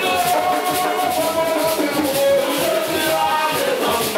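A live ensemble of hand drums playing a steady, fast rhythm, with voices singing over the drumming.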